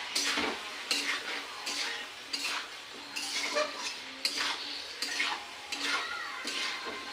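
Chicken pieces and spices being stirred in a pan, the stirring spoon scraping and knocking against the pan in regular strokes about every three-quarters of a second.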